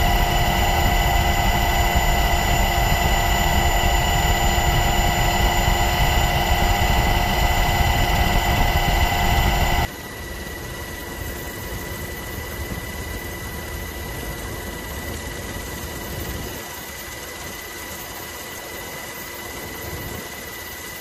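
Aircraft engine drone heard from on board: a steady noise with several high steady whining tones. About ten seconds in it cuts abruptly to a quieter drone with fewer tones.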